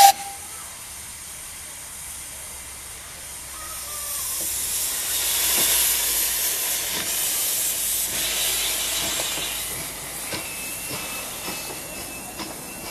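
Miniature steam locomotive, a streamlined LMS Coronation class 'Coronation', hissing steam. The hiss swells for a few seconds and then fades as the train starts off. After that come light clicking from the wheels on the rail joints and a thin intermittent squeal.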